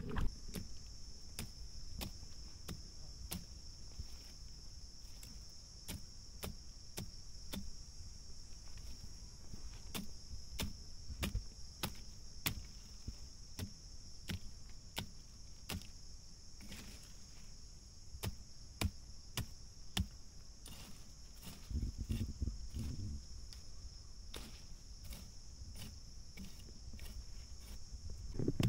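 Steady high-pitched chirring of field insects, with sharp clicks scattered through it about once or twice a second, and a few low thumps about three-quarters of the way in.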